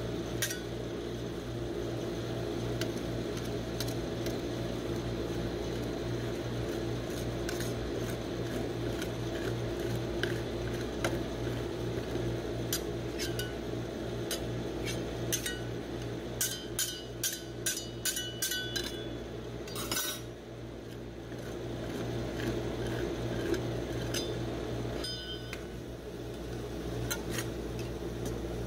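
Metal spatulas tapping, scraping and clinking on a steel rolled-ice-cream cold plate as they chop crushed Cheetos popcorn into the ice cream, with a quick run of taps a little past the middle. A steady low hum from the cold plate's refrigeration unit runs underneath.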